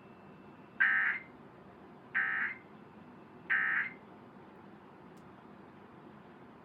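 Emergency Alert System end-of-message (EOM) signal: three short buzzy SAME digital data bursts, evenly spaced about a second and a half apart, marking the end of the alert broadcast.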